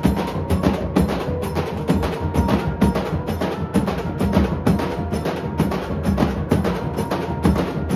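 A Nashik dhol troupe playing together: several large barrel dhols beaten with wooden sticks and thin canes in a fast, steady beat, with a sharp crack on each stroke.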